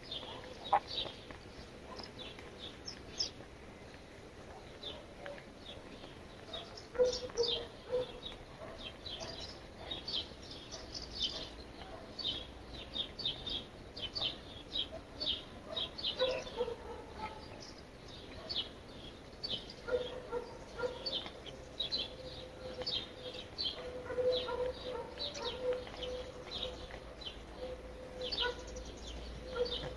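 Birds chirping in quick, short high notes, with a lower wavering call underneath that holds more steadily in the second half.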